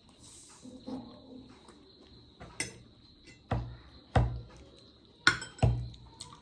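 Forks knocking and clinking against plates as momos are speared blind, about five sharp knocks, most of them in the second half.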